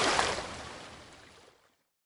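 Ocean waves washing onto a beach, a steady hiss of surf that fades out over about a second and a half.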